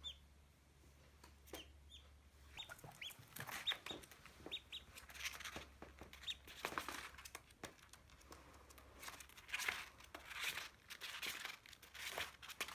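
A duckling peeping: many short, high chirps that fall in pitch, coming more often after the first couple of seconds, with light rustling and tapping of paper as it scurries over loose sheets.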